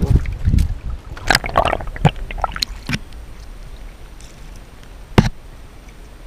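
Water splashing and knocking at the side of a wooden outrigger boat as a fish is hauled up out of the sea on a longline. There is a burst of splashing a little over a second in and a single sharp knock about five seconds in.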